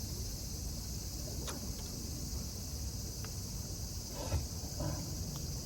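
A steady, high-pitched drone of insects calling, with a single sharp click about one and a half seconds in and faint far-off voices near the end.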